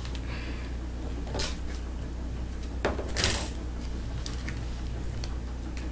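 Electrical tape being pulled off the roll in two short rasping pulls, about a second and a half in and about three seconds in; the second is louder and comes just after a click. A steady low hum runs underneath.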